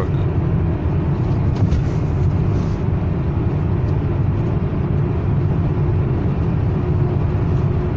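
Toyota Camry Gracia with its 2MZ-FE 2.5-litre V6, heard from inside the cabin while cruising: a steady low engine and road rumble with a faint constant hum.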